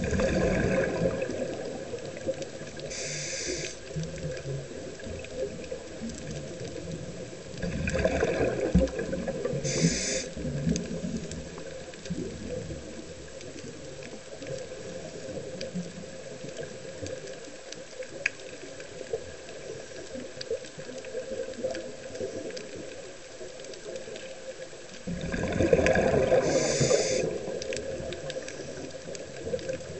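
Scuba diver breathing through a regulator underwater: three loud rushes of exhaled bubbles, about a second in, around eight seconds in and around twenty-six seconds in, with short hisses of air drawn through the regulator near them. A steady underwater wash fills the gaps.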